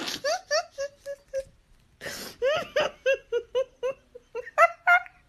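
Crying in quick strings of short whimpering wails, about three or four a second, with a gasping intake of breath at the start and another about two seconds in; the last few wails near the end are higher-pitched.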